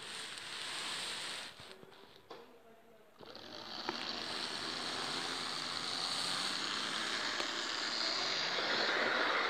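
Model electric locomotive, a model of the FS E646, running along model railway track: a steady whirring rumble of motor and wheels on rail. It drops away for about a second and a half early on, then returns louder and builds as the train passes close by near the end.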